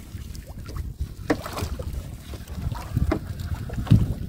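Wind buffeting the microphone over water, with a steady low rumble, broken by a few short sharp knocks about a second in, near three seconds and near the end, the last one the loudest.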